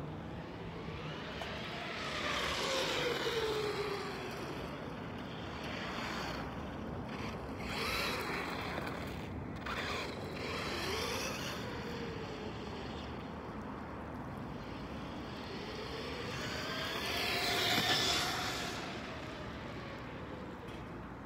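Traxxas Stampede 4x4 RC monster truck with a 4,350 kV brushless electric motor on a 2S LiPo, making several fast passes across the asphalt. Its motor and drivetrain whine rises and falls in pitch with each pass, with the loudest pass near the end.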